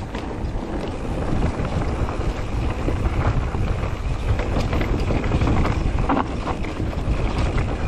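Wind buffeting an action camera's microphone over the rumble of a mountain bike's tyres on a dirt forest trail, with scattered clicks and rattles from the bike.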